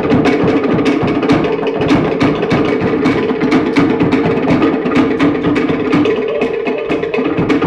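Cook Islands drum ensemble playing a fast, even rhythm on wooden slit log drums, with a large skin drum beneath, several sharp strokes a second without a break.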